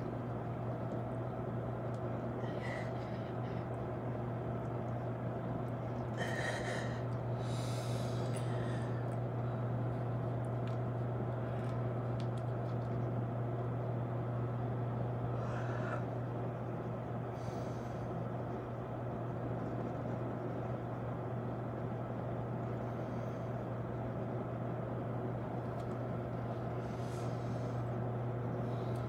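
A man breathing hard from push-up exertion, with a few sharp gasps and exhales scattered through, over a steady low hum.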